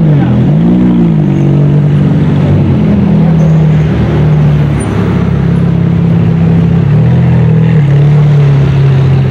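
Ferrari V8 engines running at low speed: two quick throttle blips in the first second, then a steady low engine note that shifts in pitch about seven to eight seconds in.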